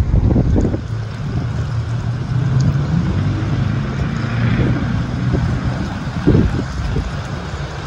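Gust-front wind buffeting the microphone in strong, uneven gusts, with jolts about half a second in and again past six seconds. Under it, a vehicle engine hums steadily from about a second and a half in until about five and a half seconds.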